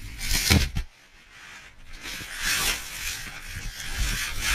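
Avalanche snow churning over the skier's point-of-view camera: rough scraping and rubbing of snow against the camera and its microphone, with a heavy knock about half a second in and the rasping swelling again after a brief lull.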